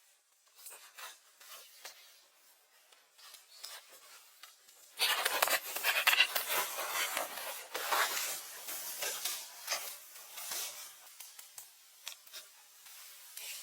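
Rubbing and scraping during building work, faint and scattered at first, then dense and louder from about five seconds in until about ten and a half seconds, then thinning out again.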